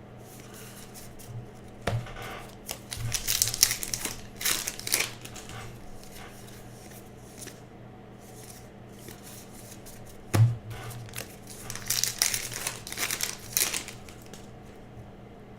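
Trading-card pack wrappers crinkling and tearing and cards being handled, in two spells, about two to five seconds in and again around twelve to fourteen seconds. There is a knock about two seconds in and another about ten seconds in, over a low steady hum.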